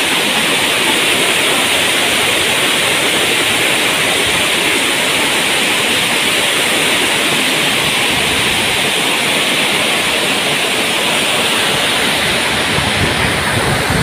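Waterfall rushing: white water pouring down a broad cascade of rock faces, a steady, loud hiss of falling water.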